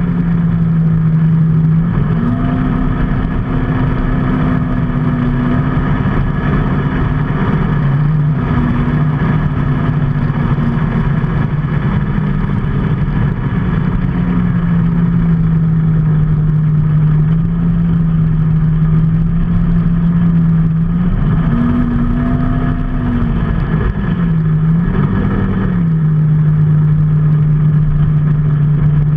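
A vehicle engine running while under way, with its note shifting as the throttle changes: it rises about two seconds in, drops back around eight seconds, and rises and dips briefly again a little past twenty seconds.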